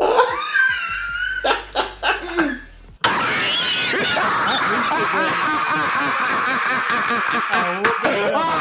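Hearty laughter for about three seconds, then a sudden switch to a duller-sounding inserted clip of music with laughing over it.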